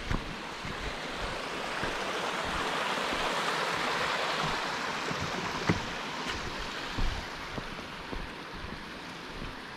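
Rushing mountain stream, swelling to its loudest a few seconds in and then easing off, as if being walked past. A few footsteps knock on the trail through it.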